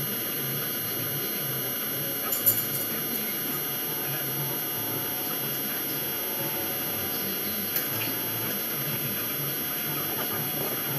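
Steady low hum and room noise, with a sharp knock about two and a half seconds in and a lighter one near eight seconds.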